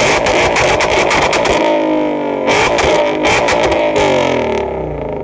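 A 1000-horsepower Ford Mustang Shelby GT500's V8 revved hard at full throttle several times, its pitch climbing and dropping with each rev, very loud.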